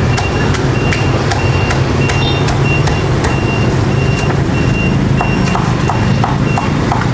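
A steady low engine rumble with a short, high electronic beep repeating about one and a half times a second, like a vehicle's reversing alarm, stopping near the end. Scattered sharp clicks and knocks run over it.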